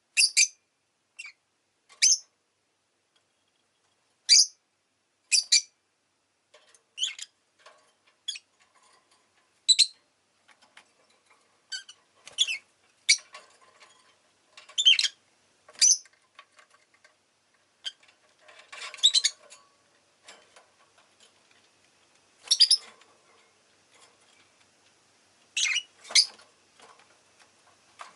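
Rosy-faced lovebird calling: short, sharp, high-pitched chirps, one at a time at irregular intervals, with some softer chatter between them.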